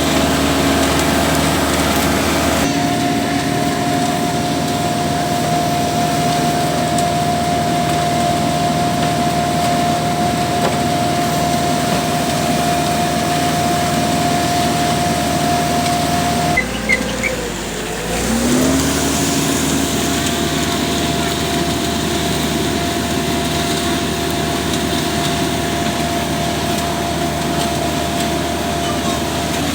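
Diesel engine of an Ajax concrete machine running steadily at a constant high speed. About 17 s in, the engine speed drops and then climbs back up to the same steady speed.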